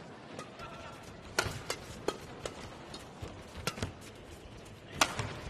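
Badminton rally: racket strings hitting a shuttlecock, about half a dozen sharp hits at an uneven pace, with brief squeaks of court shoes on the mat.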